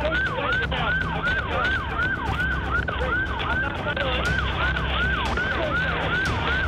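Police car siren on yelp, sweeping quickly and evenly up and down in pitch about three to four times a second, over a low steady hum.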